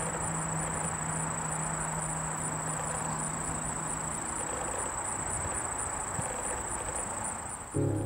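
Insects, cricket-like, trilling in a steady high-pitched pulsing drone over a soft outdoor hiss; music comes in near the end.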